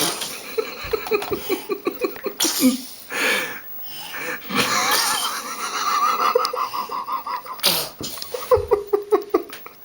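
A girl sneezing several times in a row, short sharp bursts of breath, with rapid pulsed laughing between the sneezes.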